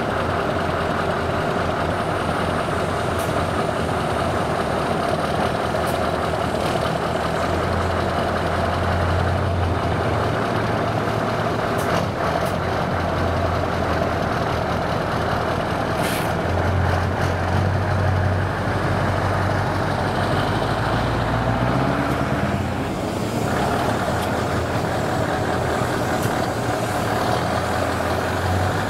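Scania 144 L 530's 14-litre V8 diesel running steadily, swelling at times, with a short hiss of air about halfway. The tractor unit moves off near the end.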